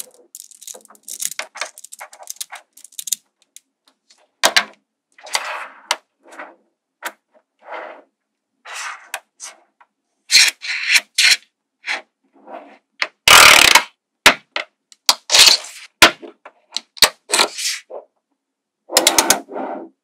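Small magnetic balls clicking and snapping together as they are pulled apart and pressed into rows, in irregular runs of rapid clicks with gaps between. A louder clatter comes about two-thirds of the way through.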